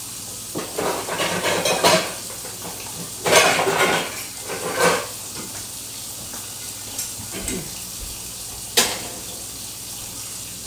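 Pots and pans clattering and clanking as a small pan is fetched, in several bursts over the first five seconds, then a few single knocks and one sharp clank near the end.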